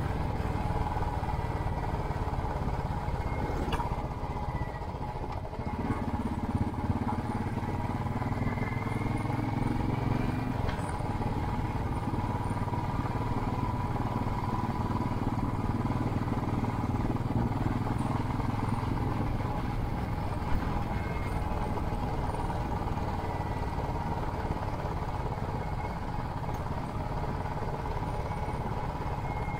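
Royal Enfield Classic 500's single-cylinder engine running steadily under way through a Hitchcock's aftermarket exhaust. The note drops briefly about four seconds in, then picks up again and runs on.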